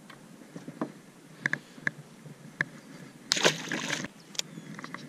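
A small largemouth bass dropped back into the lake beside the boat: a brief splash about three seconds in, after a few sharp light ticks.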